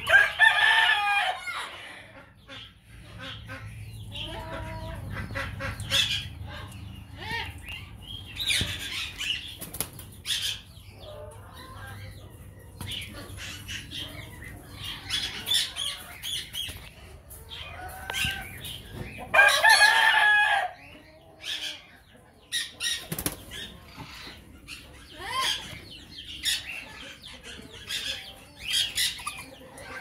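Chickens in an aviary clucking and calling, with wing flapping. Two loud, drawn-out calls stand out, one at the start and one about twenty seconds in, with shorter calls scattered between.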